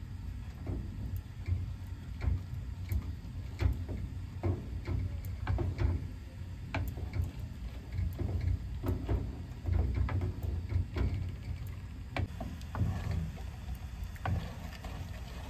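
Metal ladle stirring a thin liquid in an aluminium pot, with irregular clinks and scrapes against the pot, over a steady low rumble.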